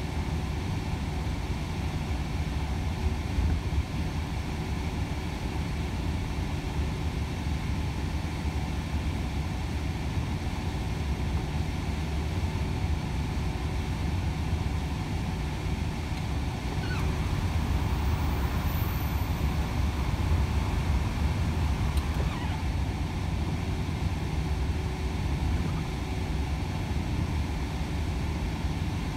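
Inside the cab of a Volvo FH 500 truck at motorway cruising speed: its 13-litre straight-six diesel runs with a steady low drone, mixed with road noise.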